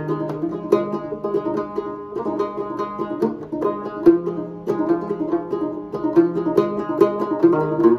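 Solo 1860s Dobson-patent banjo playing an instrumental passage: a steady run of plucked notes over a ringing drone.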